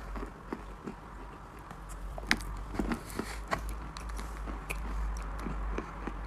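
Chalk being bitten and chewed close to the microphone: a run of crisp crunches and clicks, the sharpest about two seconds in, over a low steady hum.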